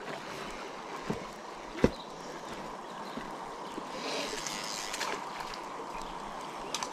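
Steady river ambience of flowing water, with two sharp clicks about one and two seconds in.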